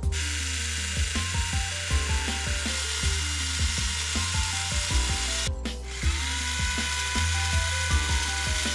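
Small electric hobby drill whirring as it bores holes in the plastic lower wing for the missile guide rails. It stops briefly about five and a half seconds in and spins back up, rising in pitch. Background music plays throughout.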